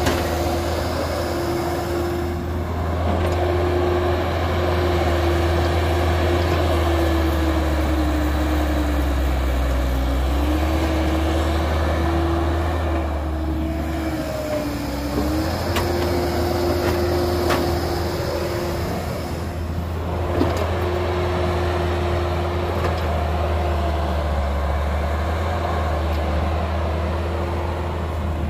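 Cat 312B hydraulic excavator's diesel engine running steadily under load as it digs and swings soil into a dump truck, with a steady whine that sags in pitch briefly twice. A few sharp knocks stand out.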